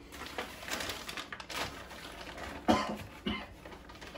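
A man coughing and gagging on a mouthful of food into a paper bag held to his mouth, in a string of rough bursts with two hard coughs about two thirds of the way through.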